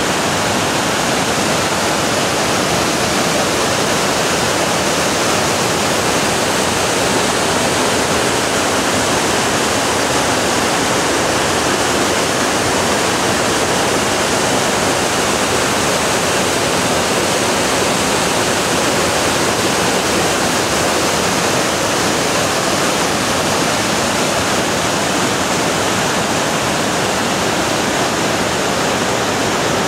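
Whitewater of a mountain river cascading over boulders and small falls: a loud, steady rush.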